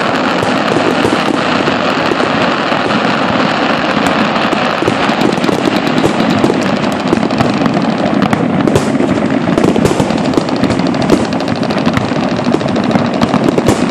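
Aerial fireworks display bursting in quick succession, a dense, continuous rattle of pops, crackles and bangs.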